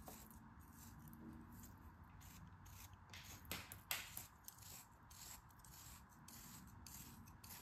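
Thin metal blade slicing through kinetic sand, a series of faint scratchy strokes at uneven spacing, with two louder ones about halfway through.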